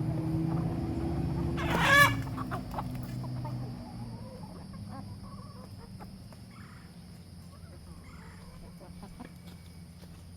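Chicken calls: one short, loud call about two seconds in, then fainter clucking. A vehicle's low rumble fades away over the first few seconds.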